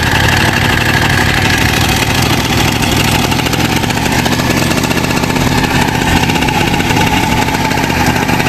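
Freshly rebuilt small motorcycle engine idling steadily with a rapid, even putter. It is running on a substitute carburetor fitted because its own carburetor was overflowing.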